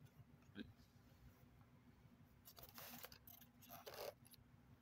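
Near silence, with a faint click about half a second in and soft rustling from handling a boxed figure around the middle.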